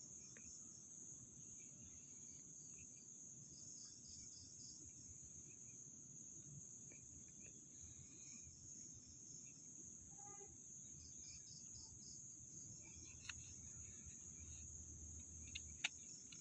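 Faint crickets and other insects: a steady high trill, with runs of quick repeated chirps coming and going, and a couple of small clicks near the end.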